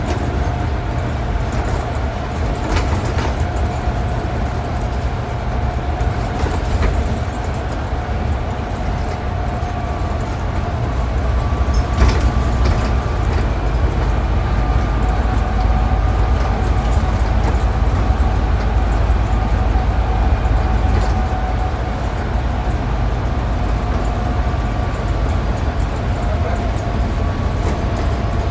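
Inside a Scania N250UD double-decker bus at cruising speed: its five-cylinder diesel engine and the road noise make a steady low drone, with a steady whine on top. A few short rattles and knocks come from the bus body.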